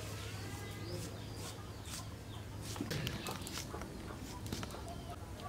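A chicken clucking, with scattered light clicks and knocks.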